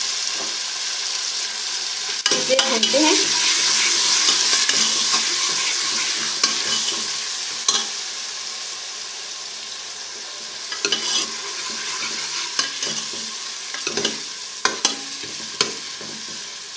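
Onions and ginger-garlic paste sizzling in hot ghee in a pan as they are stirred and fried. The sizzle is strongest in the first half and eases off, and in the second half the utensil clicks and scrapes against the pan more often.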